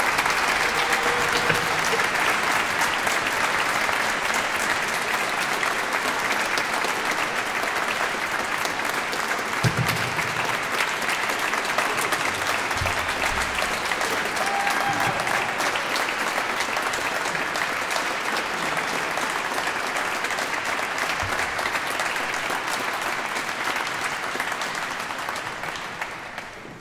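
Audience applauding steadily after a concert performance, a dense patter of clapping that fades out near the end.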